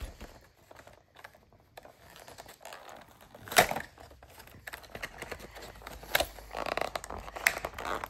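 Foil-lined plastic toy packet being torn open and crinkled by hand: scattered crackles, one loud sharp tear about three and a half seconds in, and denser crinkling near the end.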